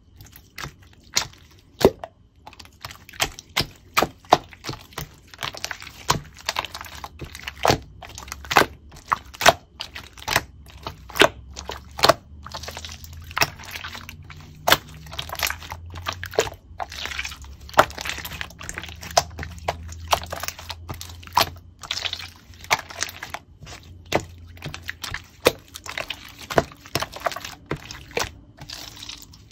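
Clear slime being pressed and squished by hand, giving irregular sharp clicks and pops, two or three a second.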